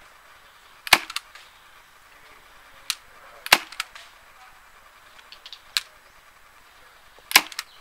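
Tokyo Marui Mk23 SOCOM non-blowback gas airsoft pistol with a suppressor, firing single shots on green gas: three sharp pops about three seconds apart, each followed by fainter clicks.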